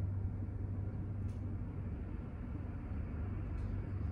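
A steady low hum with an even rushing noise beneath it, and a couple of faint clicks.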